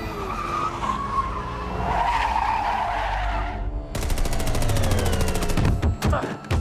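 Car tyres skidding and squealing as an SUV slides through a turn. About four seconds in, this gives way to a burst of rapid automatic gunfire, ending in a few separate shots or impacts.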